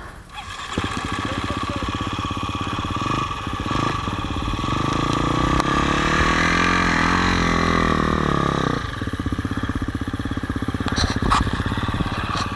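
Off-road motorcycle engine starts running about a second in and revs up, its pitch rising and falling as the throttle works. About nine seconds in it drops back suddenly to a lower, steady note near idle.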